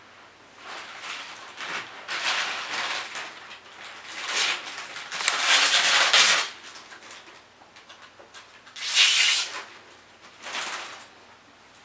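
Clear plastic wrapping crinkling as it is pulled off a pet treat dispenser, in several bursts, the longest from about four to six seconds in.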